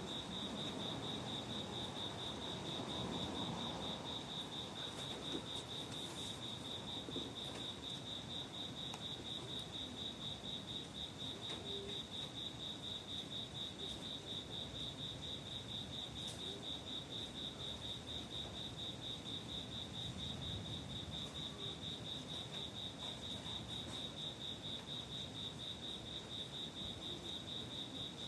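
A cricket chirping in a fast, even, pulsed trill on one high pitch, with a soft low rumble swelling and fading in the first few seconds.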